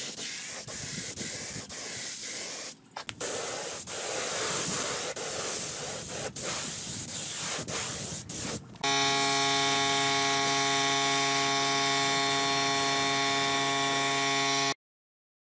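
Compressed-air spray gun with a top-mounted gravity cup spraying finish, a steady hiss in long bursts that breaks off briefly about three seconds in and again near eight seconds. It then gives way to a steady droning hum of several even pitches, which cuts off suddenly shortly before the end.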